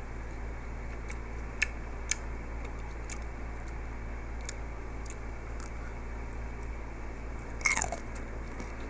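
Close-up eating sounds of chewing a cold chocolate-coated grape: a few small sharp clicks, then a louder crunch near the end as the chocolate shell breaks.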